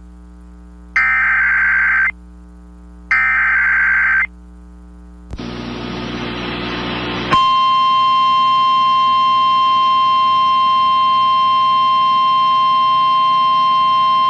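Emergency Alert System SAME header: two harsh warbling data bursts, each about a second long and about two seconds apart. A couple of seconds of rising static hiss follow, and then, about seven seconds in, the steady NOAA Weather Radio warning alarm tone begins, which here opens a tornado warning.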